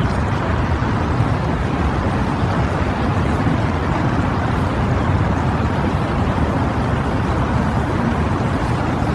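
A steady, even rumbling noise, heaviest in the low end, with no distinct events in it.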